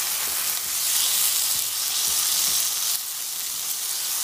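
Onion, ground tomato and spice masala sizzling in oil in a non-stick pan, stirred with a spatula: a steady frying hiss with faint knocks of the spatula against the pan.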